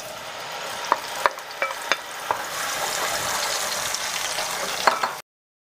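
A ground paste of onion, dried and green chillies and garlic sizzling in hot oil in a nonstick pan, louder from about two seconds in as it spreads, while a wooden spatula stirs it with a few sharp knocks against the pan. The sound cuts off suddenly near the end.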